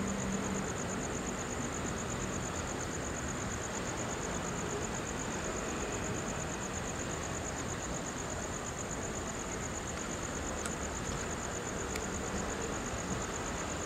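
A steady, high-pitched insect trill, pulsing rapidly without a break, over a constant hum of street traffic.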